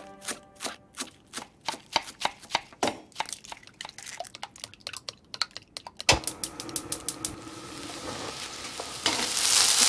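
A kitchen knife chopping vegetables on a cutting board in quick, irregular strokes. About six seconds in comes a knock, then a pan sizzling as the vegetables are stir-fried for fried rice. The sizzle swells louder near the end.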